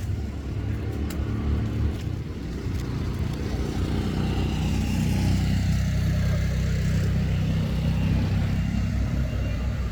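A motor vehicle's engine running, a low steady rumble that grows louder about four seconds in and eases slightly near the end.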